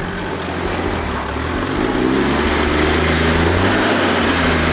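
Off-road 4WD engine revving under load as the vehicle crawls up a rutted rock step on a steep hill, the revs and level rising about a second or two in and holding.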